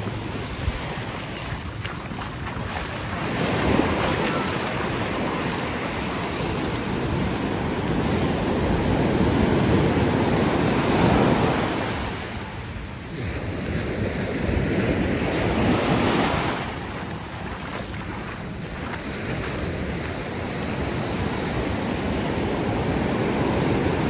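Ocean surf breaking on a sandy beach, a loud wash that swells and ebbs every few seconds as the waves come in, with wind buffeting the microphone.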